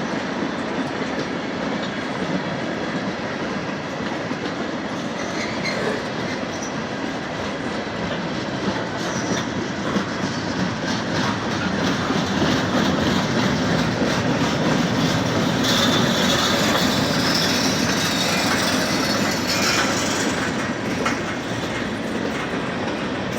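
Norfolk Southern freight train cars rolling past, steel wheels clacking over the rail joints. Past the middle comes a stretch of high-pitched wheel squeal as the sound swells a little.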